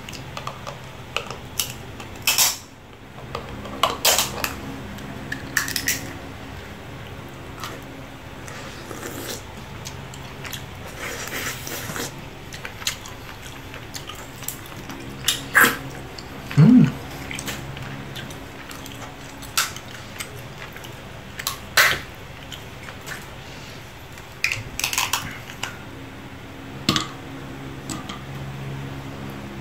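Boiled lobster shell being cracked and pulled apart by hand. Sharp cracks and snaps come at irregular moments, with the quieter handling sounds of picking out the meat in between.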